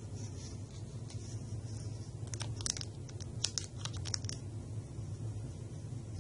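Plastic card rubbing and scraping over adhesive vinyl on glass, pressing the decal down: a cluster of short crackly scratches in the middle, over a steady low hum.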